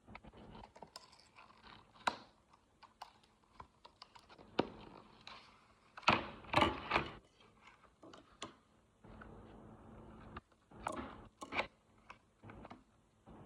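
Hands handling a screen protector's packaging: scattered clicks, taps and rustles, with louder clusters of handling noise about six and eleven seconds in.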